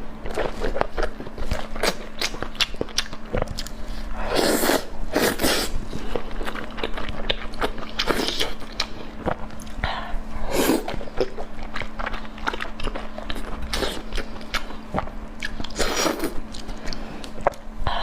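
Close-miked eating: a person chewing and biting food, with many quick wet clicks and crunches and a few louder, longer smacks.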